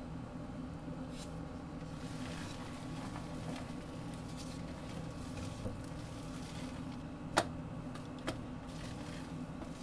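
Wire balloon whisk mixing thick castella cake batter in a glass bowl: soft wet swishing, with a sharp click of the wire against the glass about seven seconds in and a few fainter ones. A steady low hum runs underneath.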